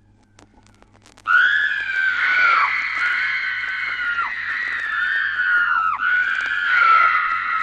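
Horror sound-effect scream: a loud, high-pitched scream starts suddenly about a second in and is held long, its pitch dropping and breaking a few times. Before it there is only faint record crackle and a steady low hum.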